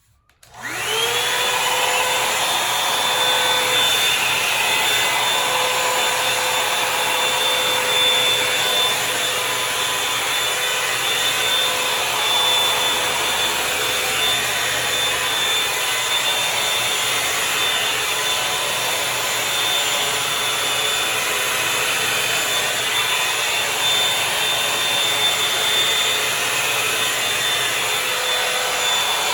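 Revlon One Step Volumizer hot-air brush dryer switched on, its motor spinning up within about a second to a steady high whine over rushing air.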